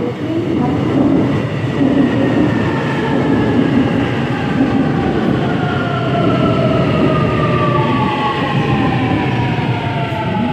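Busan Metro Line 2 electric subway train running into a station close by: a loud rumble of wheels on rail under several electric motor tones that fall steadily in pitch as the train brakes.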